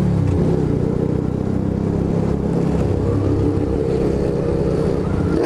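Motorcycle engine running steadily at an even pitch while riding along.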